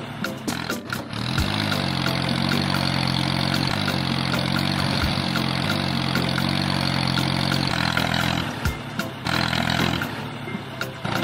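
Tractor engine sound running steadily in a low, even chug over background music. The engine sound drops out about eight seconds in, leaving the music.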